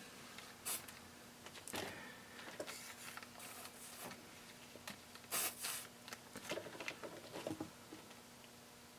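Faint, scattered scraping and light tapping from soldering-iron work: tinning the pads of a Kiss ESC and cleaning the iron's tip. A faint steady hum runs underneath.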